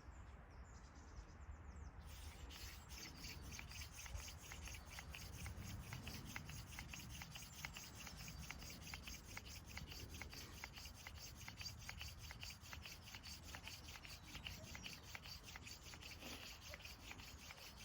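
Wooden hand-drill spindle being spun back and forth between the palms in a hearth board, a dry wood-on-wood rubbing in a fast, even rhythm of scraping strokes that starts about two seconds in; friction drilling to raise an ember.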